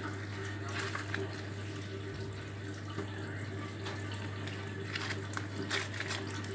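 Hands squeezing and squishing cold slime, a wet squelching with a few short crackly bursts, over a steady low hum.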